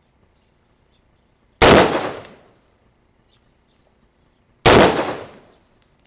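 Two single shots from an Elisco M16 rifle (5.56 mm), about three seconds apart, each fading away over most of a second, with a faint high ping just after each shot.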